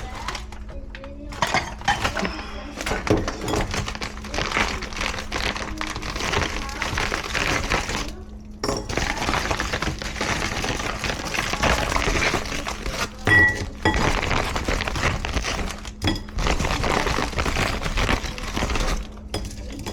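Stir-frying in a pan: a continuous sizzling hiss with a metal utensil repeatedly clinking and scraping against the pan.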